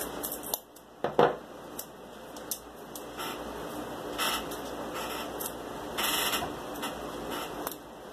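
Masking tape being pulled off the roll and torn into strips, a series of short ripping sounds, with handling as the strips are pressed onto cardboard. A sharp knock about a second in is the loudest sound.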